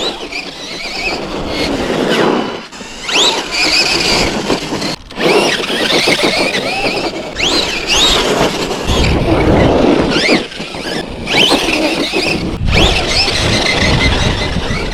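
Losi LMT RC monster truck's electric motor and drivetrain whining, the pitch sweeping up and down as the throttle is pushed and let off, with brief cut-offs between bursts. Rougher rumbling tyre and ground noise joins in about nine seconds in.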